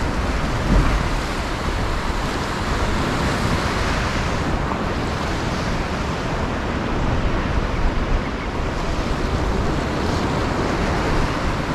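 Sea surf washing steadily onto the shore, with wind on the microphone.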